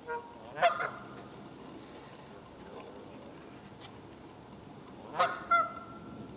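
Canada goose honking: a short call and a loud honk in the first second, then two honks in quick succession near the end.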